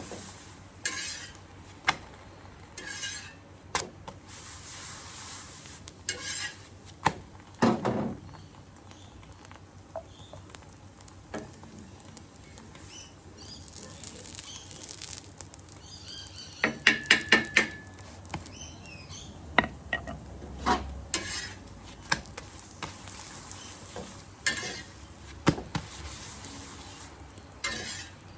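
Metal cooking utensils clinking and scraping against a pan or bowl while preparing an egg omelette, with short stretches of hiss between scattered knocks. About two-thirds of the way through comes a quick run of about six ringing metal taps.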